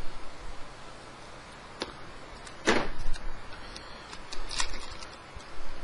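A knife cutting open a hard-drive retail box: scattered sharp clicks and ticks of blade and packaging, with a short scraping rasp a little under three seconds in and a quick cluster of clicks about four and a half seconds in.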